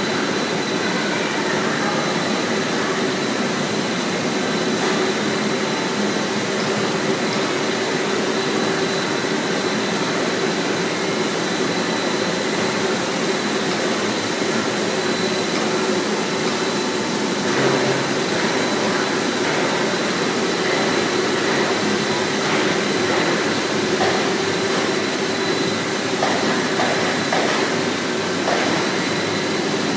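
PE extrusion coating machine for paper running steadily: a continuous loud mechanical noise with a steady hum and a thin high whine, and a few faint clicks in the second half.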